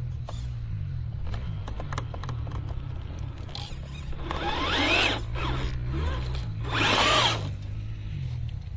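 Electric motor and drivetrain of an RGT EX86190 radio-controlled 4x4 car whining under throttle. The pitch climbs about four to five seconds in, and a second rise and fall comes around seven seconds, each louder than the steady low hum beneath.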